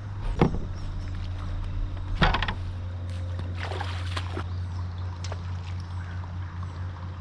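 A boat motor hums steadily, with a few sharp knocks of gear on the boat about half a second in, at about two seconds and around four seconds.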